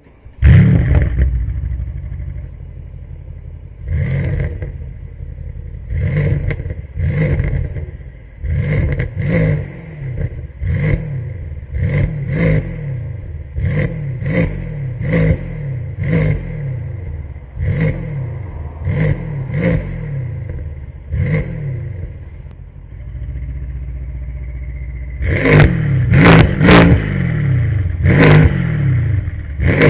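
Mercedes-AMG C63's V8 through an Fi aftermarket exhaust: it fires up with a loud flare about half a second in and settles to a deep idle. It is then blipped over and over, each rev rising sharply and falling back, with a steady idle stretch before a quicker run of revs near the end.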